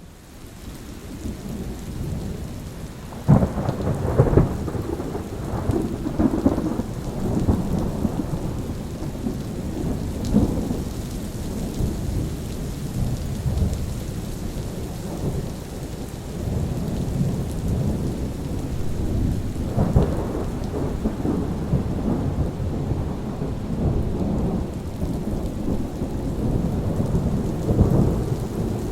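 Thunderstorm: thunder rolling and rumbling low and continuously over steady rain, with several sharper cracks scattered through, the first about three seconds in. The storm swells up from a near-silent moment at the start.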